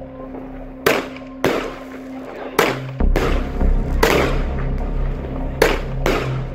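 Weco 'Shock Attack' 35-shot firework battery firing: a series of about six sharp bangs as shots launch and burst in the air, coming at uneven gaps of half a second to a second and a half.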